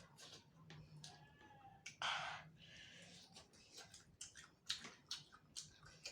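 Close-up chewing and crunching of spicy chicken heads with soft bones, many small wet clicks and crackles, with a brief louder rush of noise about two seconds in.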